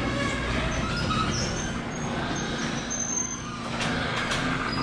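Electric garage door opener raising a sectional garage door: a steady mechanical drone with a low hum, and brief high squeaks from the moving door.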